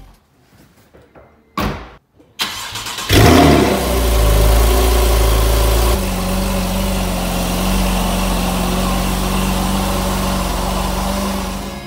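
Porsche 911 Carrera (991.1) flat-six with a Soul Performance valved exhaust starting up: a moment of starter cranking, then the engine catches with a loud flare just after three seconds in. It holds a high idle, settling to a slightly quieter steady idle about six seconds in.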